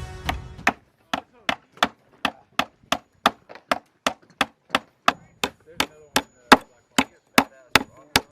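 A steady series of short, sharp clicks, evenly spaced at about three a second.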